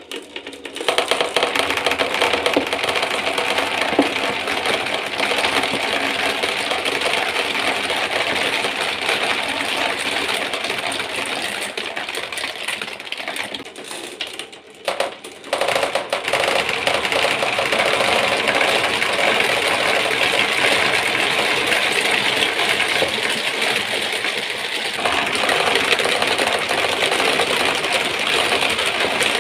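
Many marbles rolling and clattering down a marble run track, a dense continuous rattle of small clicks, with a short lull about halfway through.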